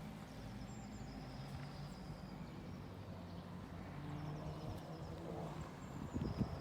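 Honda CBR600F2 inline-four engine idling steadily, with a few low thumps about six seconds in and faint bird chirps.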